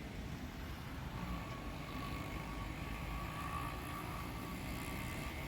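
Airbus A330 freighter's jet engines: a steady low rumble with a faint, even whine over it.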